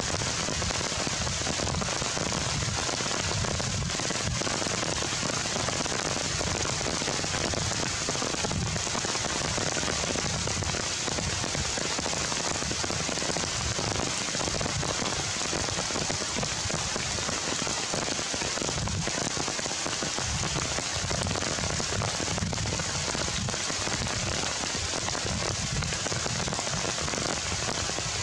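Steady rain falling on forest leaves, an even, unbroken hiss.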